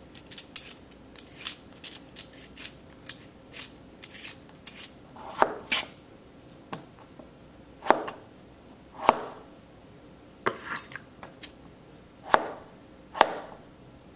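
Vegetable peeler scraping the skin off a raw potato in quick short strokes, then a chef's knife cutting the peeled potato into thick pieces on a cutting board, each cut ending in a knock on the board about once every second or two.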